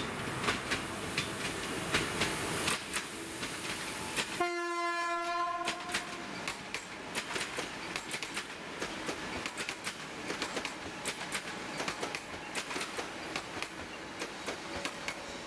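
Passenger electric multiple-unit trains passing close, their wheels clicking over the rail joints. About four seconds in, a train horn sounds one steady note for about a second and a half.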